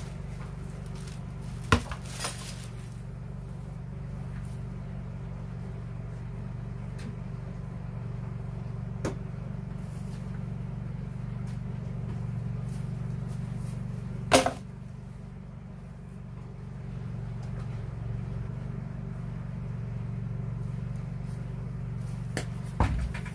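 A few sharp knocks of PVC pipe being handled and set down, the loudest about 14 seconds in, over a steady low hum.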